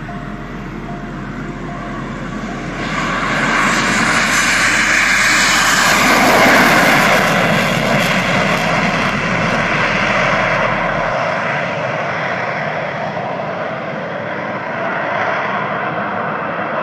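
Aircraft engine noise of a plane flying past: it swells about three seconds in, is loudest around six seconds, then fades slowly, and cuts off suddenly at the end.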